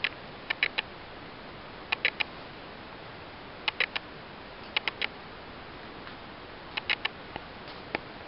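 Sharp clicks in quick clusters of two or three, coming every second or two over a steady hiss.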